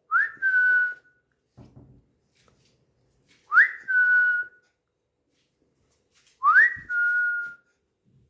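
A two-part whistle, a quick upward slide straight into a held steady note, repeated three times about three seconds apart.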